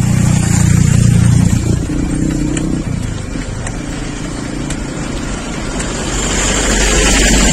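Cars passing close to a moving bicycle: a car's engine is loudest in the first two seconds, and another vehicle grows louder near the end as it comes up and overtakes.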